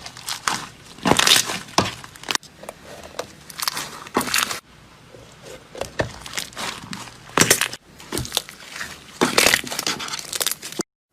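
Slime being squeezed and pressed by hand, giving loud bursts of crunching and crackling in several clusters, with abrupt breaks between them.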